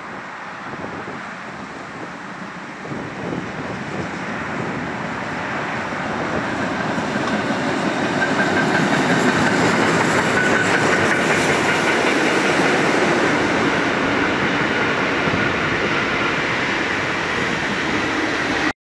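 Steam-hauled train of passenger coaches passing on the tracks. It grows louder over the first half, stays loud as the coaches roll by, and cuts off suddenly near the end.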